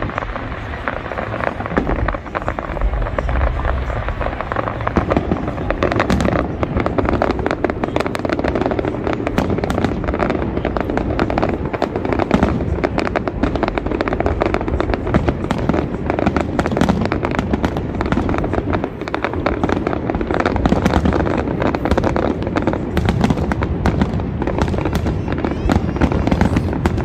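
Aerial fireworks display: a steady barrage of shell bursts, many sharp bangs and crackles in quick succession with no break.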